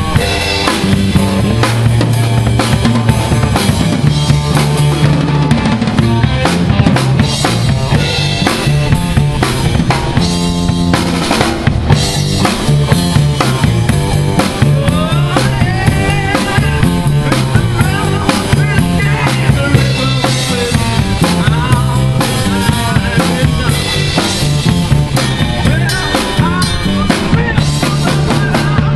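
Live electric blues band playing: drum kit with bass drum and snare, electric guitar, and a low line stepping between notes, with a wavering high lead line through the second half.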